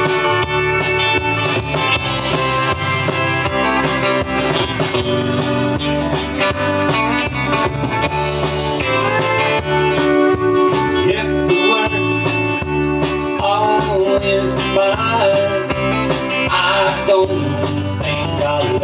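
Country band recording playing an instrumental passage, with guitar to the fore over a steady bass line.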